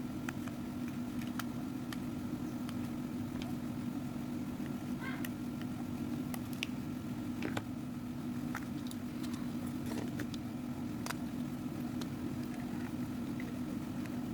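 A steady low hum with a fainter, higher steady tone above it, and scattered small clicks and taps throughout.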